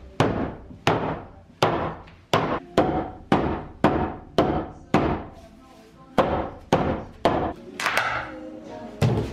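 Hammer striking a wooden wall, a steady run of single heavy blows about one every two-thirds of a second, each ringing briefly in the room.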